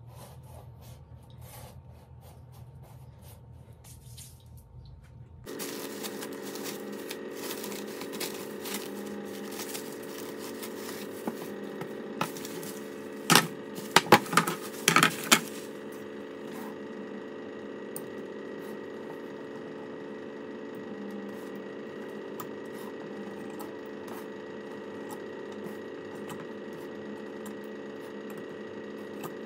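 Hands working pastry dough into a fluted metal tart tin and trimming its edge with a knife: light handling taps and ticks, with a cluster of loud sharp knocks a little before halfway. From about five seconds in, a steady hum with several tones runs underneath.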